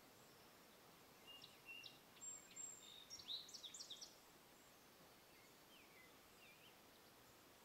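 A songbird calling: a quick run of high chirps and trills about a second in, lasting around three seconds, then a few fainter calls later, over a faint steady background hiss.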